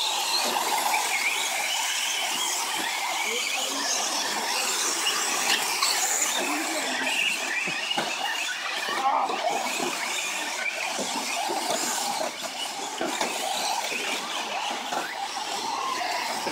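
A pack of radio-controlled 4WD short course trucks racing on a dirt track, their motors whining high and rising and falling in pitch with the throttle, many at once.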